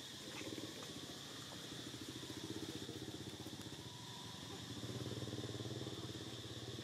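A small engine running with a fast, even pulse, growing louder about five seconds in, over a steady high insect drone.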